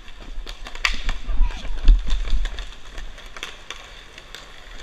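Inline hockey play: a string of sharp clacks from sticks and puck on the hard court, with the strongest knock about two seconds in, over the rolling rumble of skate wheels.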